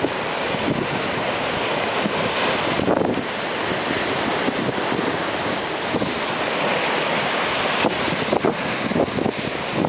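Indian Ocean surf washing and breaking in a continuous rush, with wind buffeting the microphone, gustier near the end.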